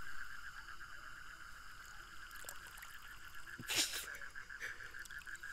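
A steady, rapidly pulsing night chorus of calling creatures, with one short noisy burst just before four seconds in.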